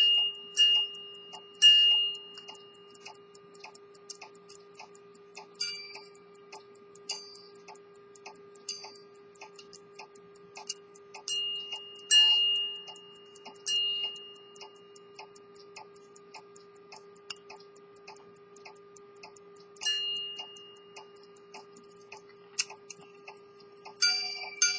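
Antique Swiss quarter-repeater pocket watch movement ticking rapidly and evenly from its lever escapement. A few single ringing strikes of a repeater gong sound over the ticking, and near the end the hammers strike the gongs several times in quick succession.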